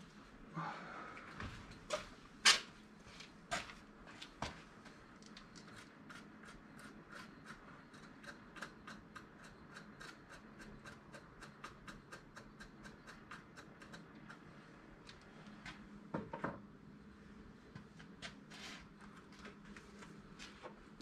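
Faint clicks and knocks of gear being handled at a workbench, a few sharper ones in the first few seconds and a short cluster about two-thirds through. Between them runs a quick, even ticking of about three a second.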